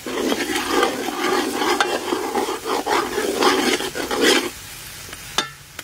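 Metal ladle stirring and scraping around a large metal pot as chopped aromatics and a paste fry in oil, with a light sizzle. The stirring stops about four and a half seconds in, and a single sharp click follows.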